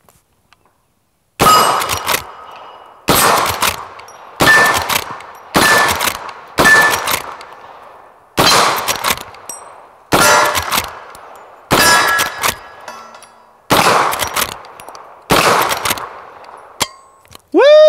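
Ten .44 Magnum rifle shots from a Henry All-Weather lever-action, fired about one to two seconds apart, each answered by the clang of a steel target ringing from the hit. Right at the end a loud swooping pitched sound starts.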